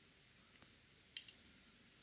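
Near silence with two faint, short clicks about half a second apart, from handling the metal parts of a disassembled Fichet five-lever cabinet lock.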